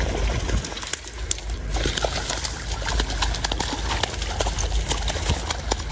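Pink salmon thrashing in shallow creek water: a quick string of wet slaps and splashes over the running water of the shallows, with a low rumble underneath.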